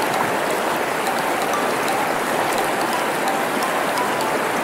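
Steady hiss of rushing water, even and unbroken, with a few faint short chirps above it.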